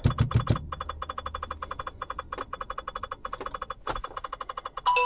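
A rapid electronic chime ticking about nine times a second over a low steady engine hum, ending in one ringing ding near the end.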